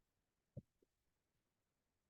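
Near silence: room tone, with one faint soft low thump just over half a second in and a weaker one right after.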